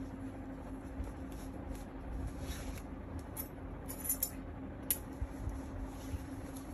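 Light handling noise from a stroller's fabric sun canopy and the thin steel wire being threaded through it: faint rustling with a few small clicks and ticks in the middle, over a steady low hum.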